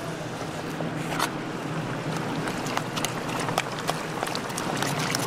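Hot oil in a deep fryer sizzling and crackling around freshly dropped fish cake paste, with frequent sharp pops.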